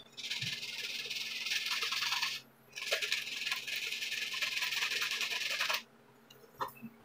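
Sandpaper rubbing back and forth on a Panasonic electric iron's thermostat contact point, in two scratchy spells of about two and three seconds with a short break between. It is scouring off the black corrosion on the contacts that keeps the iron from heating.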